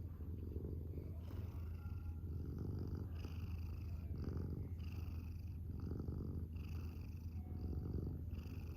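Domestic cat purring close up, a steady low rumble that swells and eases about once a second.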